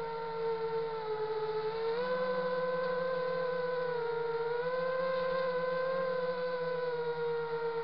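FPV quadcopter's brushless motors and propellers whining as it flies, picked up close by its onboard camera. The pitch steps up about two seconds in, dips briefly around four seconds, then climbs again as the throttle changes.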